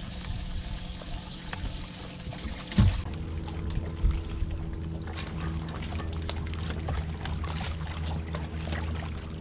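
Small waves lapping and splashing against a bass boat's hull. There is a single thump just before three seconds in, and after it a steady low hum runs underneath.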